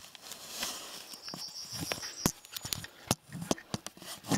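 Irregular clicks, knocks and low thumps of a gun and camera being handled while moving through dry grass, with a thin steady high whistle lasting about a second partway through.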